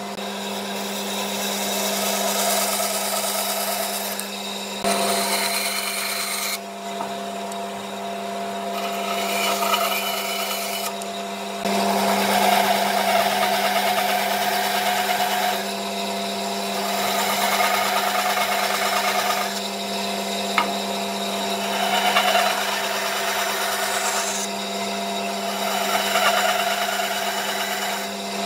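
Bandsaw running with a steady motor hum while its blade cuts through wooden boards, the cutting noise rising and falling in several stretches as the wood is fed through.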